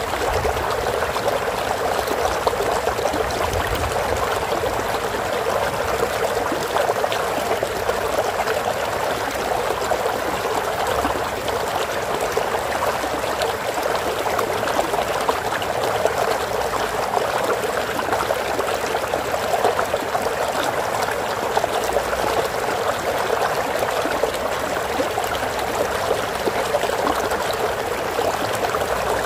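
Water flowing steadily in a stream, an even trickling and rushing without pause.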